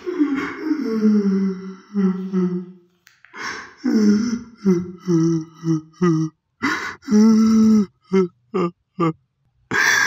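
A person's wordless voice: long falling moans at first, then a run of short broken cries with sudden silences between them and one longer held cry about two-thirds of the way in.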